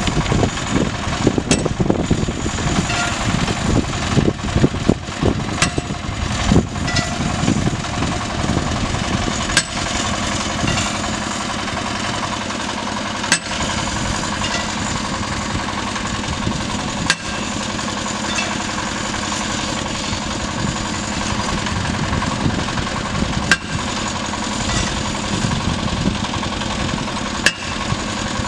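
Engine of a geotechnical drilling rig on a river pontoon running steadily, with a sharp knock every few seconds.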